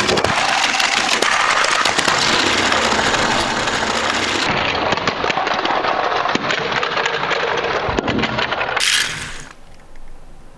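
Die-cast toy cars rolling down a slope, a dense rattle of many small metal clicks and clatters that drops away about nine seconds in.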